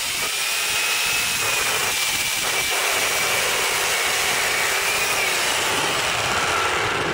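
Corded Sun Joe SWJ700E electric chainsaw cutting through an old, partly rotten landscape timber: a steady high motor whine over the chain chewing wood. About five seconds in the whine drops lower as the cut finishes and the saw comes out of the log.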